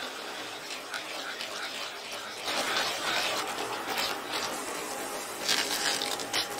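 Wooden spoon stirring and scraping sauce in a non-stick frying pan, a scratchy rubbing with louder scraping strokes about halfway through and again near the end. The sauce is being thickened with a cornstarch slurry.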